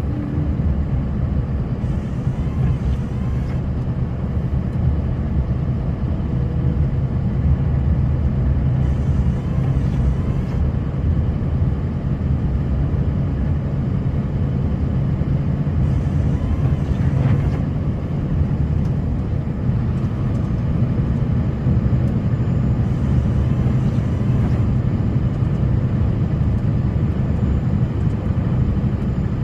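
Snowplow engine running steadily while plowing the road, a continuous low rumble heard from inside the cab.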